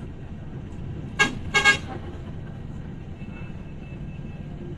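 A vehicle horn honks twice in quick succession, the second toot a little longer, over a steady rumble of road traffic.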